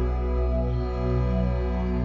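Instrumental folk music with a low steady drone under held, sustained notes.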